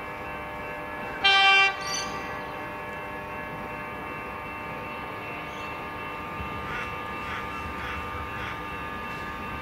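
Alstom X'trapolis 100 electric multiple unit approaching, giving one short horn blast of about half a second a little over a second in. Steady running noise of the train continues under it.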